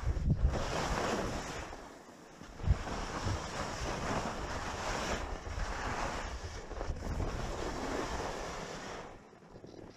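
Edges carving and scraping over groomed snow on a downhill run, the hiss swelling and fading with each turn about every couple of seconds, over low wind buffeting on the microphone. It quietens near the end.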